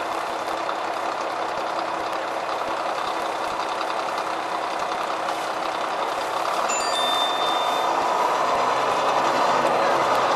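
Neoplan N4426/3 double-decker bus under way, heard on board: its MAN D2866LOH27 12-litre diesel and ZF 5HP602C automatic gearbox running steadily, growing louder about two-thirds of the way in. A short electronic beep sounds at about the same moment.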